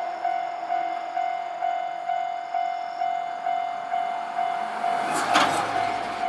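Japanese level-crossing warning bell ringing in a steady repeated ding, about two strikes a second. About five seconds in, a short loud noise cuts in over it and a low rumble begins, as the train arrives at the crossing.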